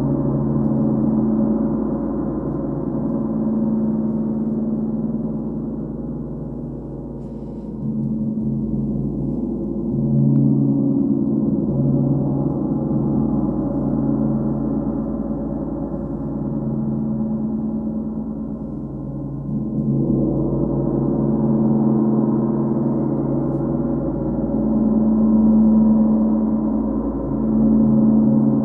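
Large hanging gongs played continuously with soft felt-tipped mallets, a wash of deep, overlapping ringing tones that pulses louder and softer. It swells again about ten seconds in and about twenty seconds in.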